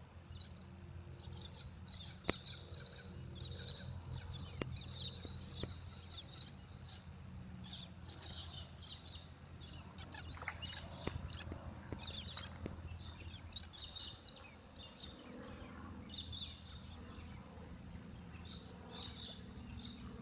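Birds chirping over and over in short bursts, with a few sharp knocks.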